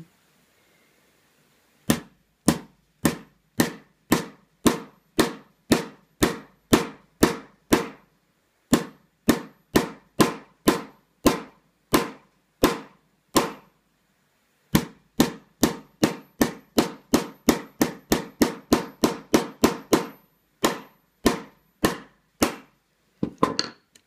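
Hammer striking the back of a thin utility-knife blade set in the seam of a hard-plastic Master Lock 410 lockout padlock case, driving it in to split the case open. Sharp, loud blows come about two a second, pausing briefly twice, then come quicker toward the end; the case is really strong and takes some bashing.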